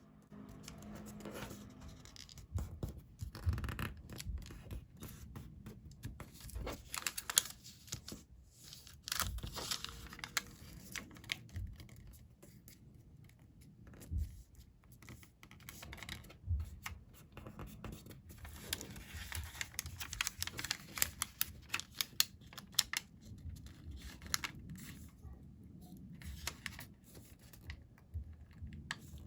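Coloured origami paper being folded and creased by hand, with irregular rustles and crisp crinkles.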